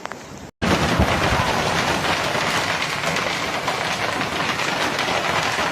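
Hail pelting down hard, a dense, steady rattle of countless impacts that starts abruptly about half a second in.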